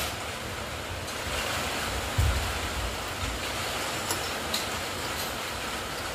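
Steady rushing noise of wind buffeting the microphone, with low rumbling gusts about two seconds in, and a few faint clinks of a spoon against a glass near the end.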